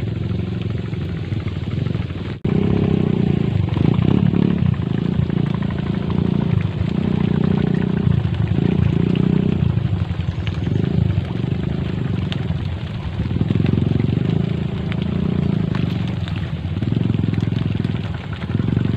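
Wind buffeting the microphone: a low rumble that swells and fades in irregular gusts, cutting out for an instant about two and a half seconds in.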